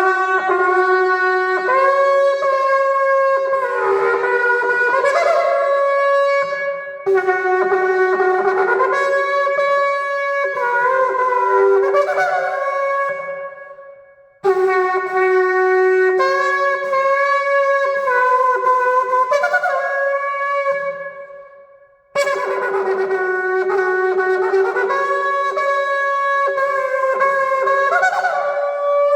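A ram's-horn shofar blown in four long blasts of about seven seconds each, the pitch leaping back and forth between a low note and a higher one within each blast; the player calls them victory blasts.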